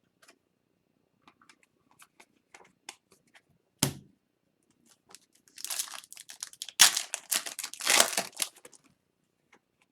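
Foil hockey card pack wrapper being torn open and crinkled, after light card handling and a single knock about four seconds in.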